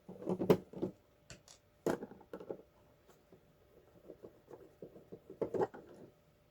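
Handling noises from the cable tester's case: a series of short clicks and light knocks, the loudest about half a second, two seconds and five and a half seconds in.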